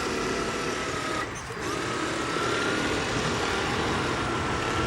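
Small RC jet boat motor and jet drive running with a steady high whine. It drops out for a moment about a second in, then picks up again.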